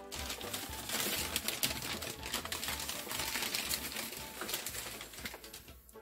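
Paper packing wrap crinkling and rustling as a ceramic plate is unwrapped, dying away shortly before the end.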